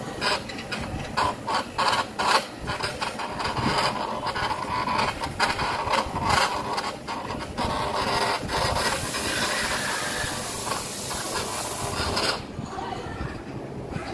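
Hobby CNC machine's stepper motors driving the axes as the machine draws shapes with a pen, running in short stop-start moves with clicks between them. A higher hiss comes in from about eight seconds in and stops about twelve seconds in.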